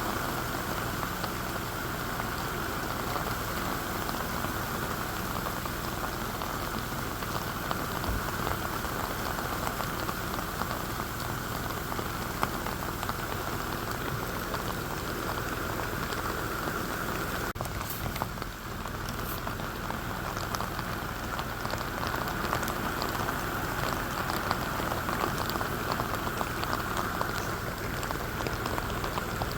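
Steady rain falling, a dense, even patter of drops that briefly drops away about two-thirds of the way through.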